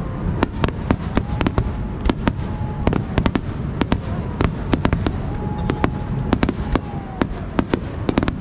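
Fireworks display: rapid, irregular sharp bangs of bursting fireworks, several a second, over a continuous low rumble.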